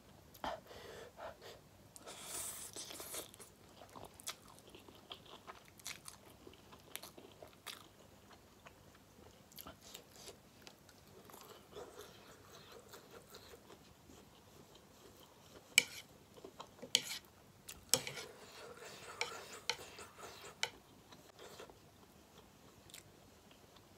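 A person eating spicy ramen noodles and sausages close to the microphone: quiet chewing and biting, with scattered sharp clicks and a few short hissy bursts, the loudest clicks coming about two-thirds of the way in.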